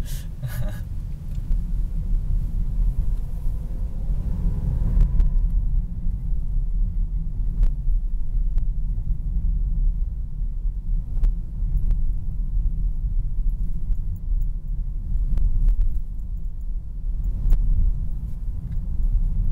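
Mazda Demio XD's 1.5-litre diesel and road noise heard from inside the cabin while driving: a steady low rumble, with the engine note rising briefly about four seconds in and a few faint clicks or knocks later.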